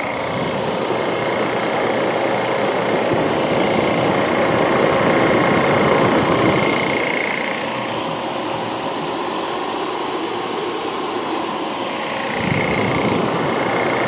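Refrigerant recovery machine running steadily, its compressor pulling the last refrigerant vapor from the AC system's low-pressure side as the gauges fall toward zero, with a faint high whine that swells and fades.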